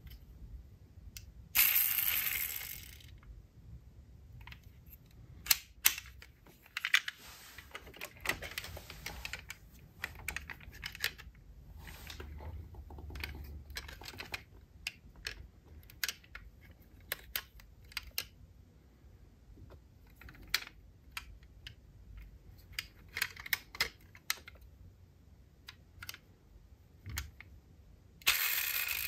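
Diecast metal toy cars being handled in the hands and over a cardboard box: irregular small clicks, taps and clinks as the cars are turned and their doors opened. Two louder rustling scrapes stand out, one about a second and a half in and one near the end.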